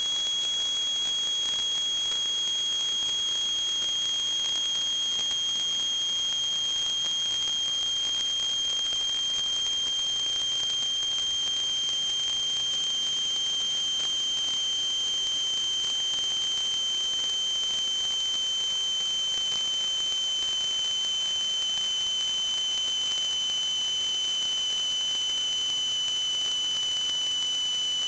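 A continuous high-pitched whistle, held steady and sinking very slightly in pitch, over a faint hiss.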